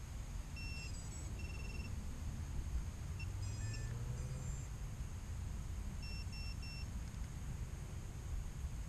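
Short electronic beeps from an FPV racing quadcopter resting on the ground: scattered single beeps, then three quick evenly spaced beeps about six seconds in, over a steady low rumble.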